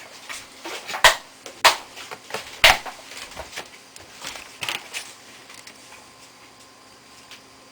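Sharp plastic clicks and taps as the bottom covers of a Toshiba A300 laptop are fitted over the hard drive bays: three loud clicks in the first three seconds, then lighter taps that die away about five seconds in.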